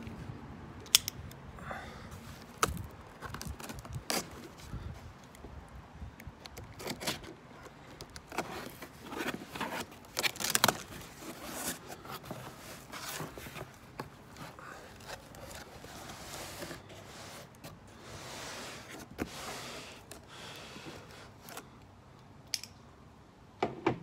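Utility knife slicing through packing tape on a cardboard shipping box, then the cardboard flaps being pulled open. Irregular scraping and tearing with scattered sharp clicks.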